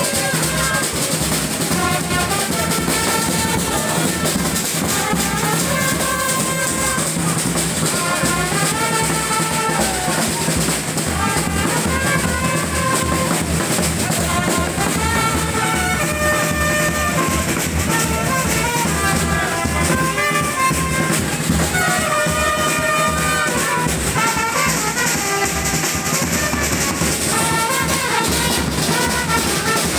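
Brass band playing live: trumpets and other brass horns carry a lively melody over a steadily beaten bass drum.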